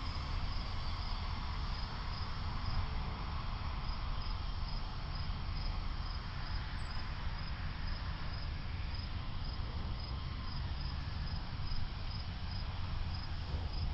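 Cricket chirping steadily, a short high chirp repeating a little more than once a second, over a low steady rumble.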